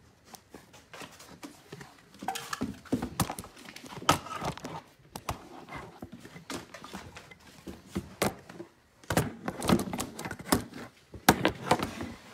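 A dog moving about and searching on a hard floor indoors: irregular knocks, thuds and clicks, busiest from about two seconds in and again over the last few seconds.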